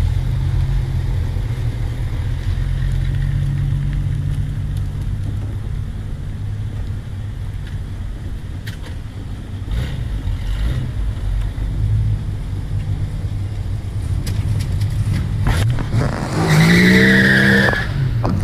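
Car engines rumbling steadily, then near the end one engine revs up sharply with a high squeal for about a second and a half.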